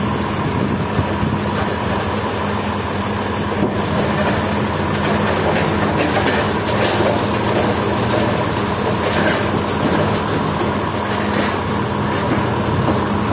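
Sawmill machinery running steadily with a constant engine-like drone, with scattered clicks and scrapes through the middle.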